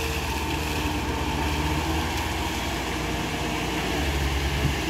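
Caterpillar hydraulic excavator's diesel engine running under load as the machine lifts and swings a bucket of mud, a steady low drone that swells about four seconds in.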